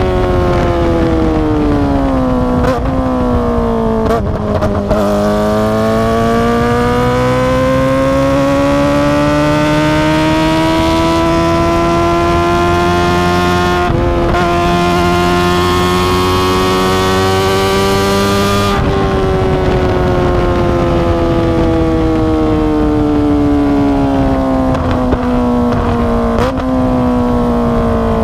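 Kawasaki ZX-25R's 250 cc inline-four engine through an Akrapovic exhaust under way: the revs fall with a few quick breaks in the first seconds, then climb slowly through a long pull with a brief break about halfway. About two-thirds of the way in the throttle closes and the revs fall away steadily.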